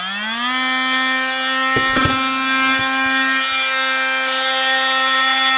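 Milwaukee oscillating multi-tool running a coarse-grit sanding pad against the broken handle of a glazed ceramic bowl: the motor's hum rises to speed in the first half second, then holds steady. A few short knocks come about two seconds in and once more about three seconds in.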